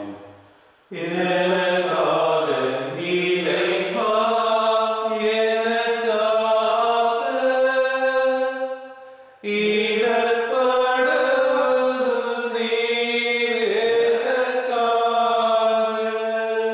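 A devotional hymn sung in Tamil by one voice, in two long, slow phrases with held notes and a short break between them.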